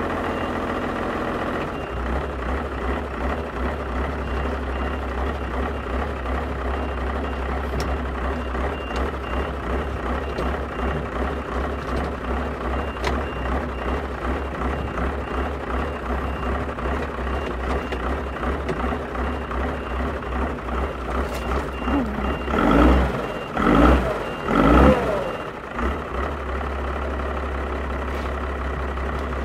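Tractor engine idling with a steady beat, revved up and back down three times in quick succession near the end. A faint high beeping repeats through most of it.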